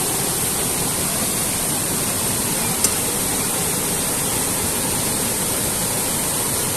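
A river rushing over rocks, a steady even noise, with one brief click about three seconds in.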